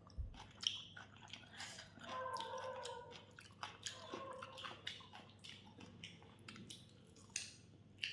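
Close mouth sounds of a person eating: chewing food, with many small wet clicks and smacks at an uneven pace.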